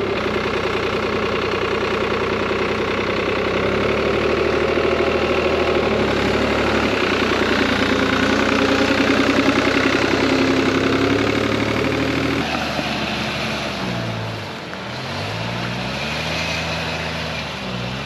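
Jeep engines running while two electric winches pull a mud-stuck tractor free: a steady mechanical hum that steps in pitch a few times, then sags and rises again in the last few seconds.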